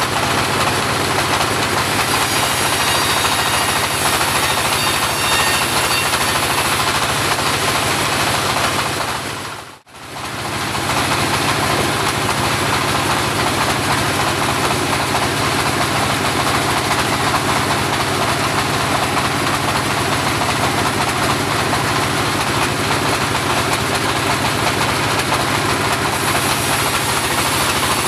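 Home-built portable bandsaw running steadily, a loud mechanical noise. The sound dips out for a moment about ten seconds in, then comes straight back.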